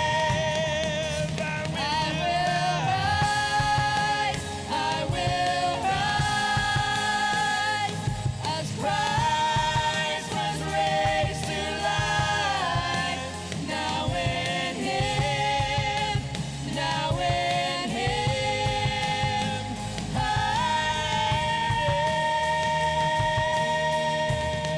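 Live worship band playing, with voices singing long held notes with vibrato over the band.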